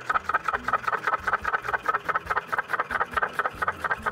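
Hand-cranked grinder milling sugared cacao into chocolate on a third, refining pass. It makes a steady, rhythmic grating clatter of about seven clicks a second.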